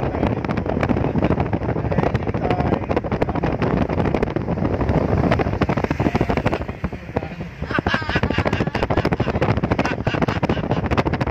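Wind buffeting the microphone of a phone held at a moving car's side window, over the rumble of the car on the expressway. It sounds loud and crackly, easing off for about a second around seven seconds in.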